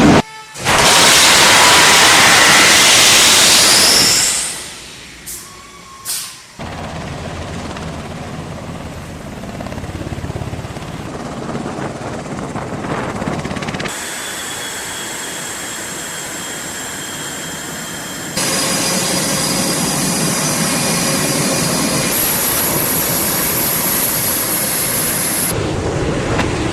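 Jet aircraft engines running on a carrier flight deck, heard as a series of abruptly cut clips: a loud rush of noise at first, then quieter stretches, then steady high turbine whines over engine noise in the later clips.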